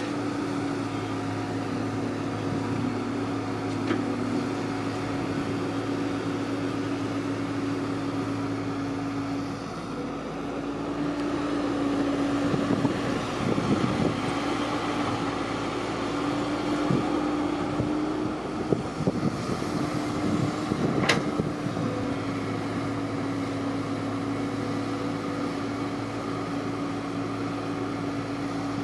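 Engine of a Kubota rice-harvesting machine running steadily at constant speed, a droning hum, with some clattering and a few sharp knocks around the middle.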